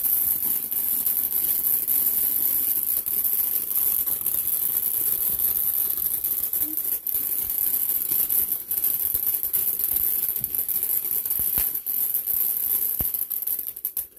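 Ground fountain firework burning: a steady loud hiss of spraying sparks with scattered crackles, stopping abruptly at the end as it burns out.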